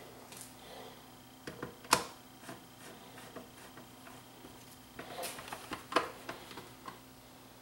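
A few sharp plastic clicks and knocks from handling a monitor's plastic back cabinet and a screwdriver on a workbench, the loudest about two seconds in and a cluster around five to six seconds in.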